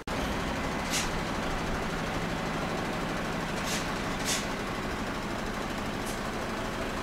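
Heavy truck engine idling steadily, with four short hisses of released air: one about a second in, two close together in the middle, and one near the end.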